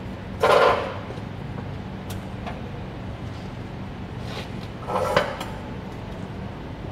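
Two brief scraping, rustling handling noises from a welder getting ready: one about half a second in and one about five seconds in, the second ending in a sharp click. They sit over a steady low electrical hum from the welding equipment; no arc is struck.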